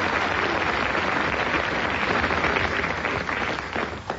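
Studio audience applauding after a song, fading away near the end.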